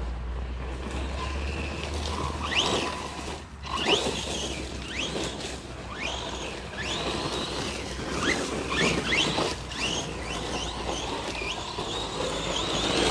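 Losi Lasernut RC truck's electric motor whining up and down in pitch again and again as it accelerates and lets off, with the tyres scrabbling over dirt.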